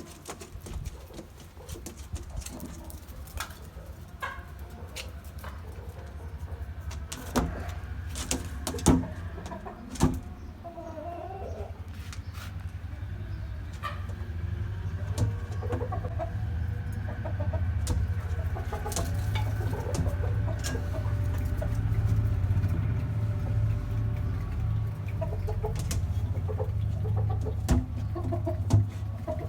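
Chickens clucking, with scattered clicks, over a steady low rumble that grows louder through the second half.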